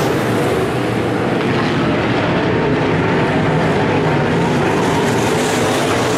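Several dirt-track modified race cars' V8 engines running hard around the oval, a steady, loud blend of engine notes.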